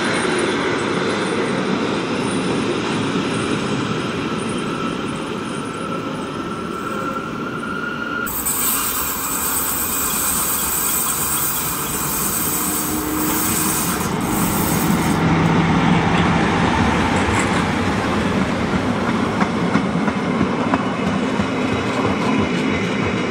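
Historic metre-gauge Rhaetian Railway passenger coaches rolling slowly past, their wheels rumbling on the rails, with a thin high wheel squeal for a couple of seconds and clicks over rail joints near the end.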